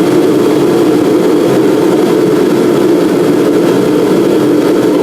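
Reddy diesel torpedo heater running just after being powered on, with a loud, steady rush from its blower.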